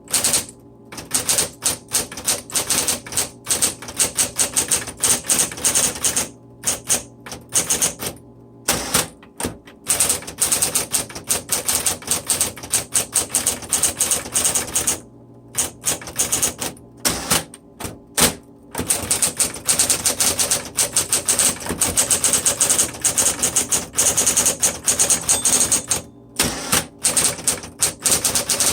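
Smith Corona Electra 220 electric typewriter typing in quick runs of keystrokes, broken by short pauses several times, over the steady hum of its motor.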